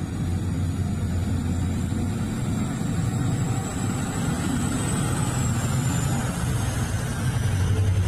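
Komatsu mining haul truck's diesel engine running with a steady deep drone as the truck drives past, with a faint high whine that rises slightly and then falls away in the second half.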